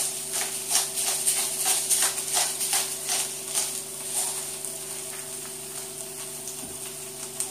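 Hand-twisted salt grinder grinding salt over a pan, a gritty crunching in quick strokes about three a second that stops about four and a half seconds in. A faint steady sizzle from the frying onions runs underneath.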